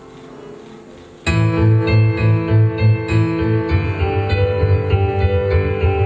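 Backing music for the routine: soft held notes, then about a second in, louder music starts abruptly with a steady pulsing bass beat under several held notes.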